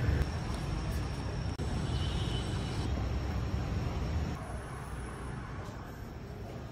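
Steady outdoor background noise: the low rumble of city traffic.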